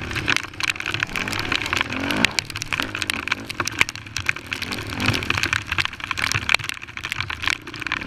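Honda TRX450R quad's single-cylinder four-stroke engine running under load at speed, its pitch rising as it is revved up about two seconds in and again about five seconds in. Dense crackling from wind and rain buffeting the camera microphone runs through it.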